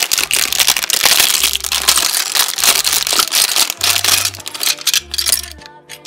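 Clear plastic bag crinkling loudly as it is pulled open and shaken, with small plastic building bricks rattling as they tip out of it; it stops near the end, leaving children's background music with a steady bass line.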